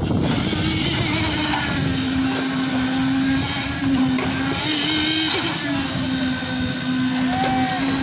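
Concrete mixer machine's engine running steadily, its pitch shifting slightly up and down.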